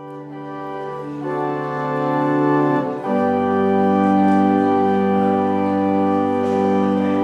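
Organ playing slow held chords that grow louder, with a chord change about a second in. A deep bass note enters about three seconds in beneath a long sustained chord.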